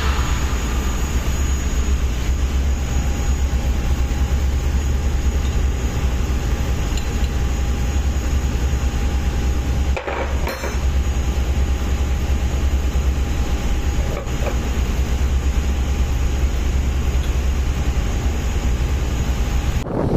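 Steady drone of a ship's engine-room machinery, a deep hum with a faint steady whine over it, dipping briefly about halfway through.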